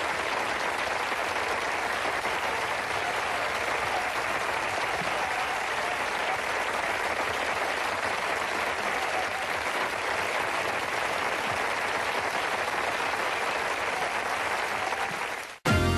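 Studio audience applauding, steady and sustained, cut off shortly before the end as music starts.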